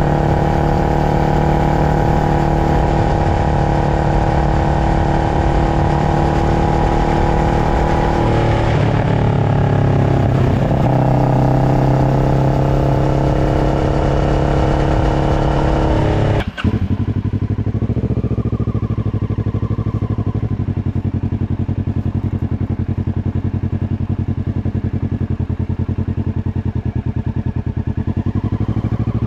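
Kawasaki Ninja 650 parallel-twin engine running through an aftermarket slip-on exhaust, holding a steady engine speed with a brief dip and recovery in pitch partway through. About two-thirds of the way in, the sound cuts abruptly to lower, duller running with an even, fast pulse.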